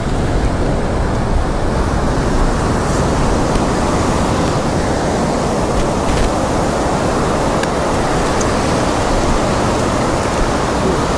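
Shallow surf washing up over the sand at the waterline: a steady rush of breaking and receding water.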